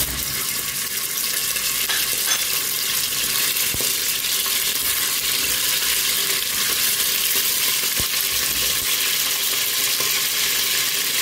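Small pieces of beef sizzling steadily in hot oil in a stainless steel pot as they are stirred with a spatula, with a couple of light knocks of the spatula against the pot.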